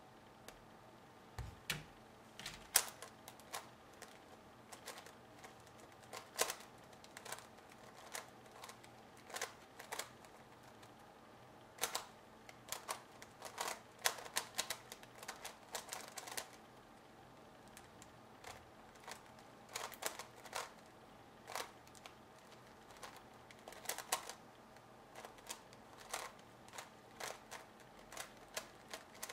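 MF8 Megaminx being turned fast by hand in a speedsolve: irregular plastic clicks and clacks of the faces turning. They come in quick flurries with short pauses, and there is a sparser stretch partway through.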